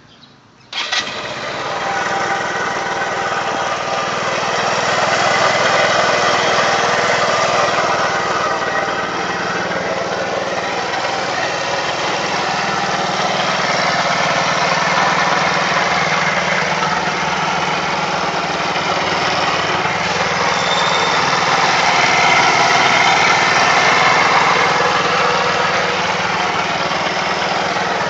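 A small engine starts up under a second in and then runs steadily, a sound put forward as an abnormal noise.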